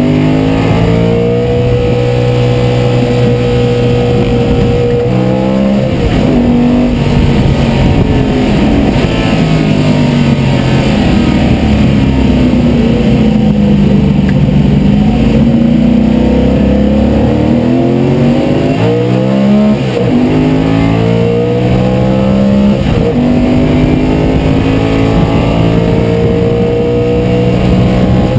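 Race car engine at racing speed, heard from inside the cockpit. The pitch holds high, breaks about six seconds in, then falls steadily as the car slows, bottoming out about halfway through. It then climbs again, with sudden drops in pitch twice near the end as the driver shifts up.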